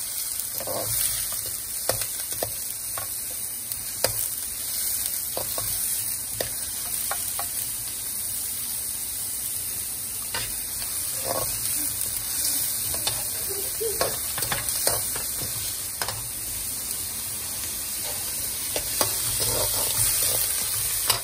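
Chopped shallots, curry leaves and green chillies sizzling in hot oil in an aluminium kadai, frying with whole fennel, cloves and cinnamon. A metal spatula scrapes and taps against the pan again and again as they are stirred.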